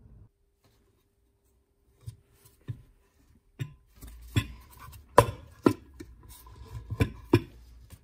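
A series of sharp knocks and clatter from the wooden case of an old GPO telephone repeater bell as it is handled and its hinged wooden lid is shut. A few light clicks come first, and the loudest knocks fall in the second half.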